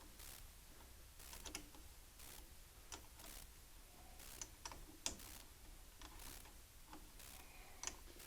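Faint, scattered metallic clicks and light scraping from hand tools working a battery cable clamp onto its terminal, about half a dozen separate clicks.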